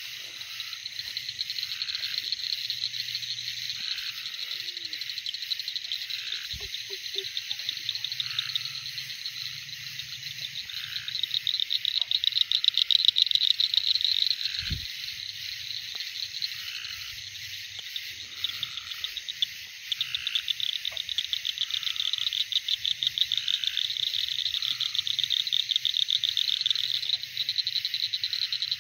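A dense night chorus of frogs calling: a high, rapidly pulsing trill that never stops and swells louder twice. Two short low knocks come through, one a few seconds in and one about halfway.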